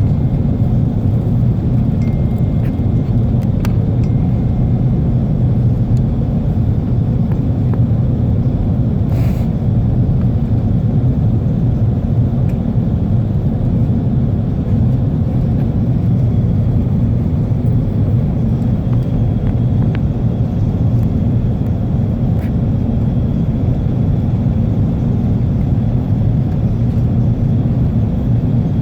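Airbus A330 cabin noise on approach: the steady low rumble of the jet engines and the airflow over the fuselage, heard from a passenger seat, with a faint high steady tone joining about halfway through.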